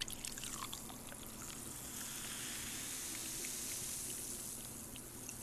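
Carbonated Hot Six grapefruit energy drink poured from a can into a glass: a faint, steady fizzing hiss with small pops of bubbles.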